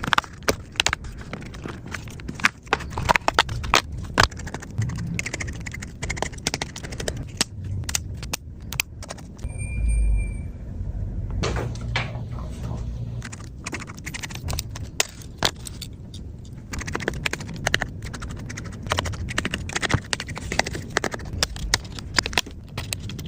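Many small clicks, taps and light clinks of hands and tools handling a tablet during a repair, with low handling thumps. A short electronic beep sounds about ten seconds in.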